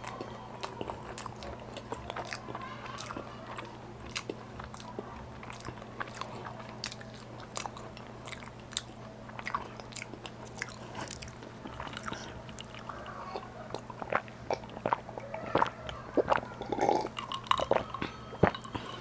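Close-miked chewing and biting of food, with many small wet mouth clicks and smacks, getting louder and busier in the last few seconds. A steady low hum runs underneath.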